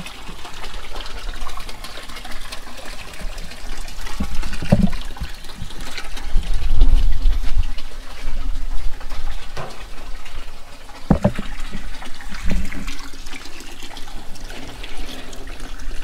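Water draining from a camp sink basin down a flexible drain hose into a plastic bucket. A few dull knocks and a low rumble about halfway through.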